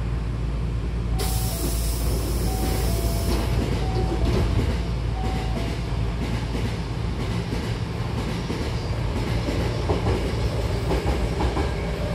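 Hankyu train's sliding doors closing: a sudden hiss of compressed air about a second in, with a repeating two-note chime. Then the train pulls away, its wheels clicking over rail joints more and more often.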